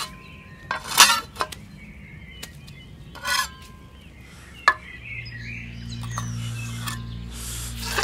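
A few short clinks and scrapes, like metal utensils being handled, then a low steady hum that comes in about halfway through.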